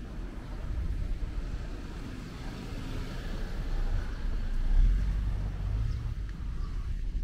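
Street traffic noise: a car passing, a low rumble that swells to its loudest about five seconds in.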